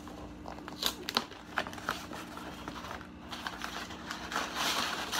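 Cardboard shipping box being pried and torn open with keys, its tape glued on: a few sharp clicks and scrapes, then a longer rustling tear of cardboard and paper from about four seconds in.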